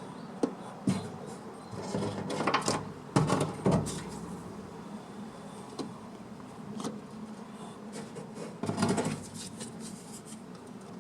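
Workshop handling noises: scattered sharp clicks and knocks with short rustling, scraping bursts, busiest about two to four seconds in and again near the end.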